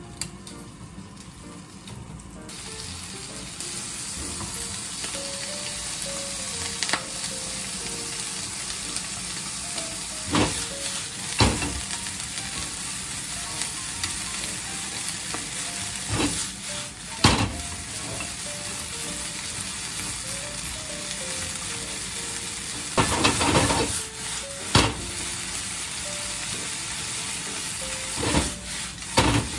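Sliced pork and garlic chives sizzling as they stir-fry in a frying pan; the sizzle grows louder a couple of seconds in. Chopsticks and a wooden spatula knock and scrape against the pan now and then, most busily near the end.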